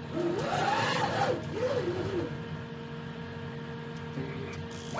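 CNC lathe's axis drive motors whining as the carriage and cross-slide are jogged toward the tool touch-off arm. The pitch rises and falls twice in the first two seconds as the moves speed up and slow down, over a steady machine hum.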